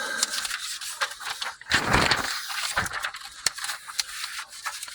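Papers and a clipboard being shuffled and handled inside a pickup cab while someone searches for a photograph: rustling with scattered clicks and knocks, loudest about two seconds in.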